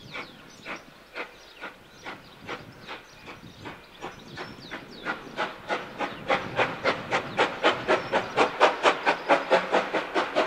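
Steam locomotive pulling away, its exhaust chuffs quickening from about two to about four a second and growing louder as it works up speed.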